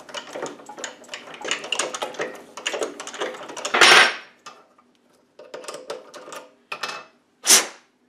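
Hand-working a mini lathe to cut a thread with a bottoming tap in a Delrin disc: rapid irregular clicking and rattling from the lathe as it is turned by hand, broken by two louder metallic clanks, one about four seconds in and one near the end.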